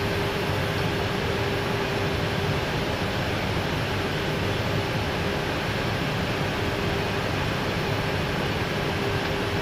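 Steady flight-deck noise of an Airbus A319 on approach: a constant rush of airflow over the cockpit with a faint steady hum.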